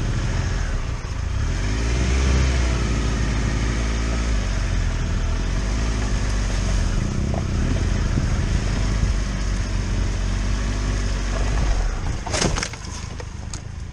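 Triumph Tiger 1200's three-cylinder engine running at low speed on a muddy track, its revs rising and falling. About twelve seconds in there is a clatter as the bike goes down, and the engine cuts out.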